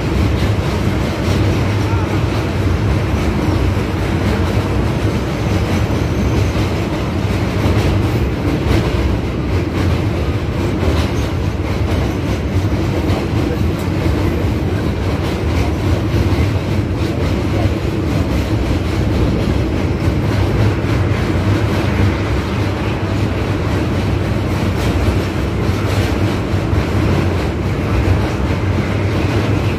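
Passenger train running steadily over a steel truss railway bridge, heard from a coach window: a continuous rumble and rattle of wheels on the rails, with many faint irregular clicks.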